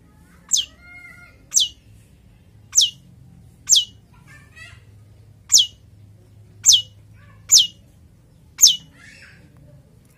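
Long-tailed shrike (cendet) calling: eight sharp calls, uneven but roughly a second apart, each a quick falling whistle, with softer chirps between them.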